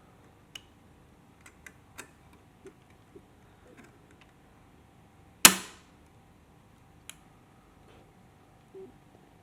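Light clicks and taps of PC parts being handled, with one loud, sharp snap about five and a half seconds in.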